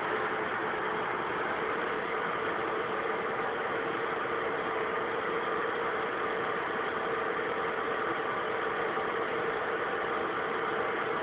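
A small motor running steadily with a constant rushing hiss and a steady hum.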